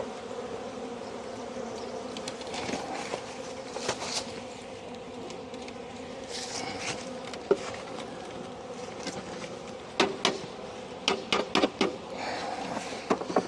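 Honeybees buzzing steadily around an open hive, with a cluster of sharp knocks and clicks near the end as hive parts are handled.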